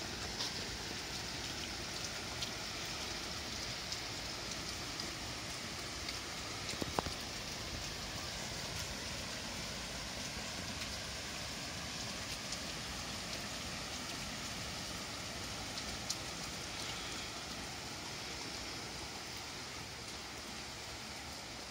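Steady summer rain falling on garden foliage and paving: a constant even hiss with scattered close drips ticking, the sharpest about seven seconds in.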